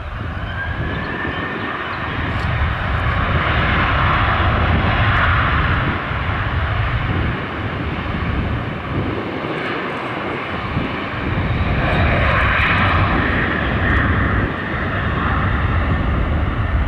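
Ryanair Boeing 737-800's twin CFM56-7B turbofans at takeoff thrust during the takeoff roll: a steady, loud rumble and roar, with a faint fan whine rising in pitch at the start.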